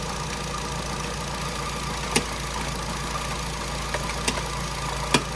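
Nissan Grand Livina's four-cylinder petrol engine idling steadily, heard from the open engine bay, with a few sharp clicks over it.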